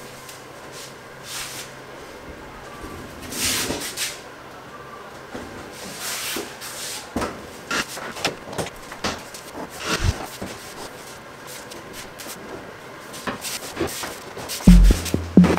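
A tall metal refrigerator being rocked and shifted into place by hand, with scrapes, knocks and rubbing. There is a dull thump about ten seconds in.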